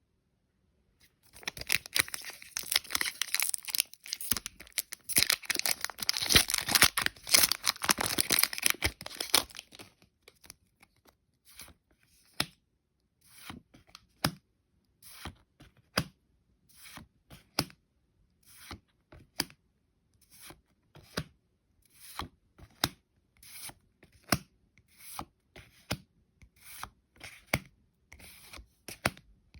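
Foil wrapper of a Pokémon TCG booster pack being torn and crinkled open for about nine seconds, then the cards slid off the stack one at a time, a short swish about once a second.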